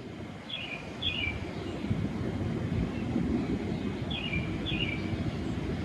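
A bird gives two pairs of short, falling chirps, one pair near the start and one near the end, over a steady low rumble.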